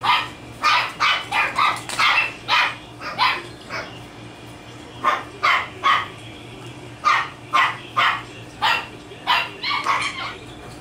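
Puppies barking in quick runs of short, high-pitched yaps, with a pause of about a second roughly four seconds in. A faint steady low hum runs underneath.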